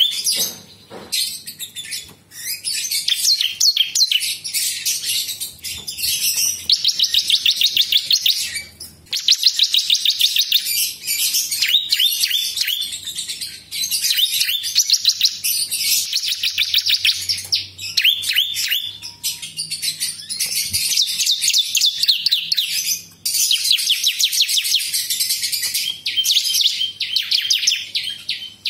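Caged prinia (prenjak) singing loud, fast trilled phrases of rapidly repeated high notes, each phrase several seconds long, broken by short pauses.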